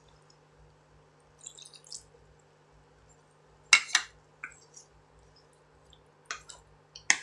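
Cornstarch-thickened stir-fry sauce bubbling in a pan with small pops. A wooden spatula knocks sharply against the pan twice near the middle and twice more near the end as the food is stirred.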